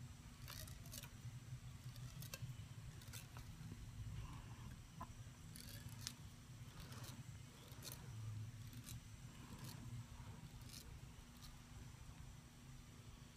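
Twisted cotton thread snapping as it plucks eyebrow hairs during threading: faint, irregular clicks, about one a second, over a low steady hum.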